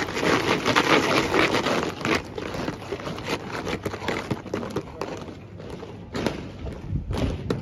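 Guardsmen's boots marching and stamping on the parade ground, a run of short footfalls, thickest at the start and picking up again near the end.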